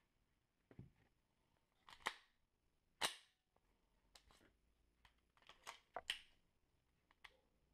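A series of short, sharp clicks and knocks as a compact pistol is picked up off a table and handled, about seven in all, the loudest about three seconds in and a close pair around six seconds.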